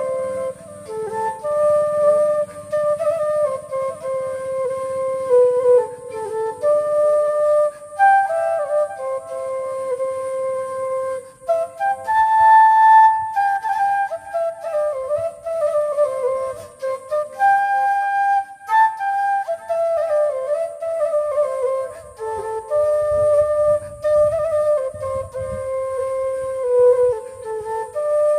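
Bansuri (bamboo flute) playing a slow romantic song melody: one line of held notes joined by slides and quick ornaments, with a faint low accompaniment underneath at times.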